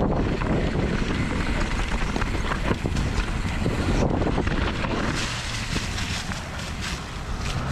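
Wind buffeting the microphone over a steady low rumble, with scattered clicks and rattles throughout.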